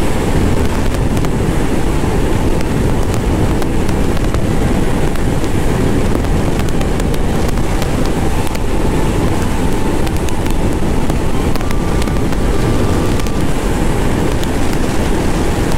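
Heavy, steady wind noise on a helmet-mounted microphone from a Bajaj Pulsar NS200 held flat out at about 150 km/h indicated on a downhill, with the single-cylinder engine running at high revs underneath.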